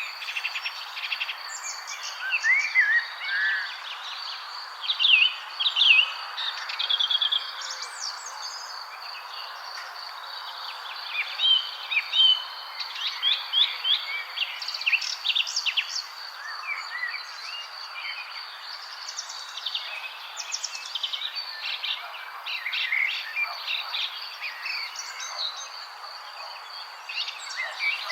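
Several songbirds chirping and trilling at once, busy short calls and song phrases over a steady background hiss with a continuous high insect-like tone.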